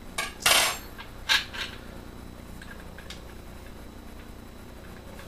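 Handling noise from an airsoft AK replica being taken apart: two short scrapes of parts against the metal body in the first second and a half, then a few faint clicks over a low steady hum.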